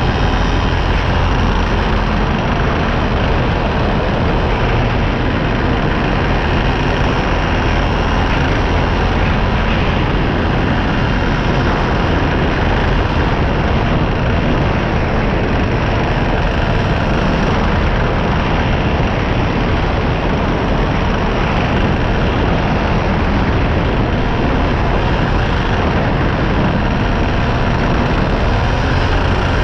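Paramotor engine and propeller running steadily in flight, holding an even level throughout.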